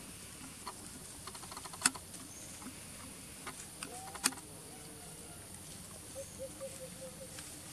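Light scattered clicks and rustles of macaques moving over dry leaves and picking at food on the ground, with two sharper clicks, the first about 2 seconds in and the second a little after 4 seconds. A row of faint short squeaks follows about 6 seconds in.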